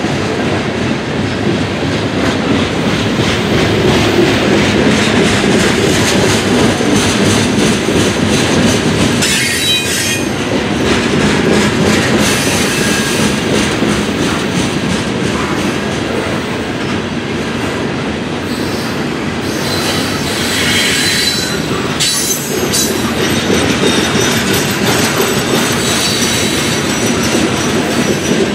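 Freight train of covered hopper cars rolling past, a steady rumble of wheels on rail with wheel squeal rising above it around ten seconds in and again around twenty seconds in.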